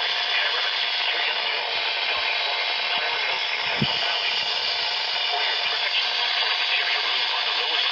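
Radio static: a steady hiss of weak reception with no words coming through, and a single click about four seconds in.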